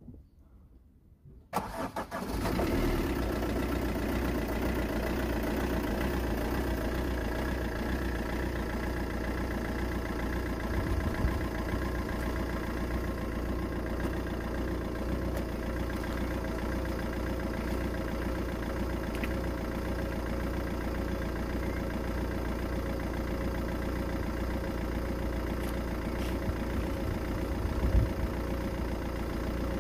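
2014 Vauxhall Combo van's turbo diesel engine starting about a second and a half in and settling straight into a steady idle: its first start after the engine and turbo rebuild.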